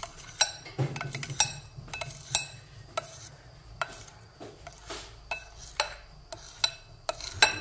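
Kitchen knife cutting through set strawberry jelly in a glass bowl, the blade tapping the glass bottom with each cut: about a dozen sharp, uneven clicks.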